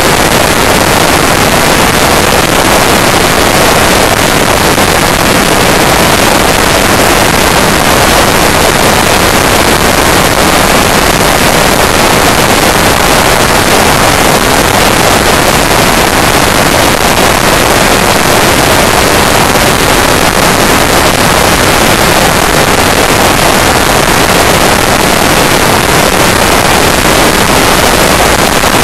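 Loud, steady wind rush buffeting the microphone of a motorcycle-mounted camera at motorway speed, drowning out the engine.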